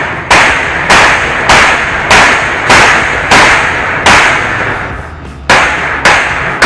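Hammer striking a steel frame: about nine loud, ringing metal-on-metal blows, roughly one every 0.6 s, with a pause of over a second shortly before the last two.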